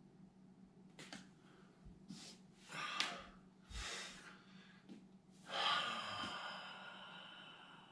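A man's controlled deep breathing: a few short, forceful breaths, then a long breath out starting about five and a half seconds in that slowly fades. A faint steady low hum runs underneath.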